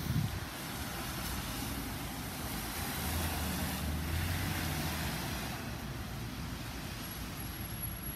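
Traffic passing on a rain-soaked road: tyres hissing on the wet pavement, with a deeper engine drone from about three to five seconds in as an ambulance and a car drive by. A brief thump right at the start.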